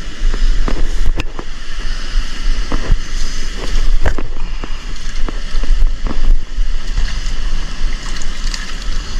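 River water rushing over rocks, with wind buffeting the microphone in a low rumble. A few short clicks and knocks are heard through it, the clearest about a second, three and four seconds in.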